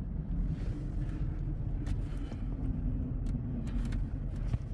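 Car engine running steadily at low speed, a low even hum, with a few faint clicks.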